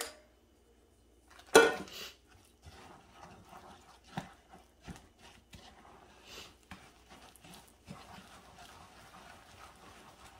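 A spoon stirring thick banana-and-flour cookie dough in a glass mixing bowl: soft, irregular scraping with small knocks against the glass. It begins with a single louder clank about a second and a half in.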